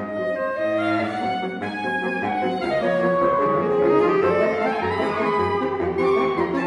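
Saxophone quartet of soprano, alto, tenor and baritone saxophones playing a tango, with held notes over a low baritone bass line. In the middle, the upper voices slide up and down in pitch.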